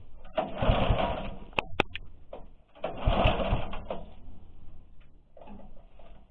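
Recoil starter rope of a walk-behind tractor's Lifan petrol engine pulled hard twice, about two seconds apart, the engine turning over briefly each time without catching. It is being cranked on a substitute spark plug after the old plug came out black.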